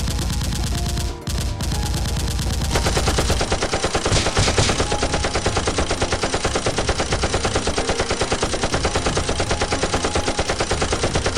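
Sustained rapid-fire machine-gun fire, a continuous fast run of shots, with background music underneath for the first few seconds.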